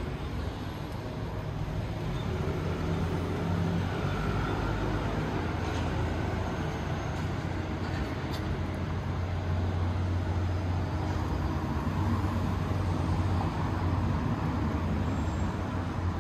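City street traffic: a steady low engine hum over general road noise, growing louder a few seconds in and easing off near the end.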